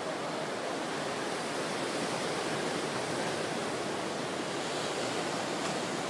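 Ocean surf breaking and washing over a black lava-rock shore: a steady rushing of waves.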